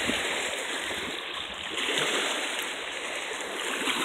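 Small waves lapping and splashing over the shallow, rocky edge of a river, a steady watery rush that swells briefly about halfway through.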